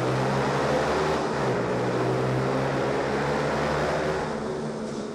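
Motorcycle engine running hard at a steady high pitch, with wind rush, easing off slightly near the end.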